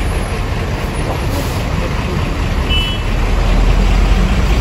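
Heavy road traffic in a jam: a steady low rumble of idling truck and bus engines, heard from an open bus window. A short high beep sounds about three seconds in.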